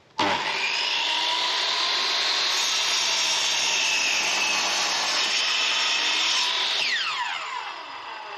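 Electric miter saw starting suddenly and cutting through a weathered timber board with a steady loud whine and rasp. About six and a half seconds in, the motor winds down in a falling whine as the blade slows.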